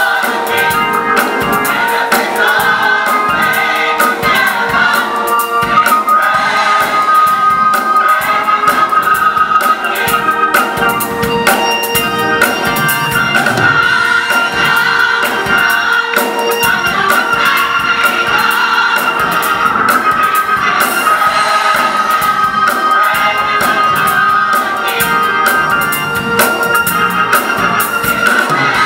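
Large gospel choir singing in full harmony over organ, with a steady beat of drums and hand claps running through.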